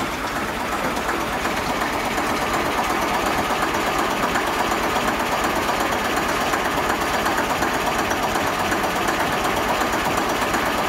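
Gardner diesel engine in a narrowboat's engine room idling steadily, with a fast, even knocking beat. It grows a little louder over the first couple of seconds.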